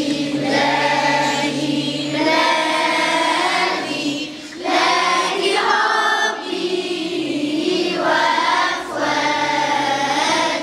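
A children's choir singing together in phrases, with short breaks between them.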